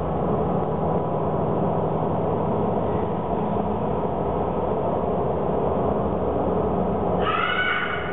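Steady low rumbling drone of a video installation's soundtrack. A brief cluster of higher, slightly rising tones sounds about seven seconds in.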